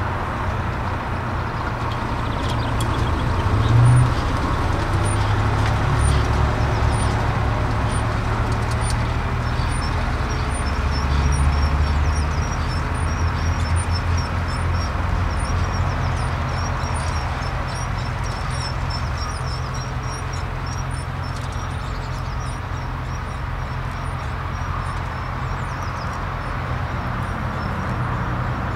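Tractor diesel engine running steadily, swelling a little a few times. Faint, evenly spaced high ticks run on top through most of it.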